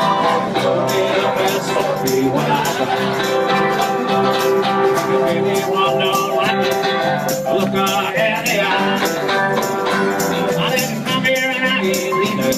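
Live country band playing, with acoustic guitars strumming and a light rattling percussion keeping a steady beat: an instrumental stretch of the song.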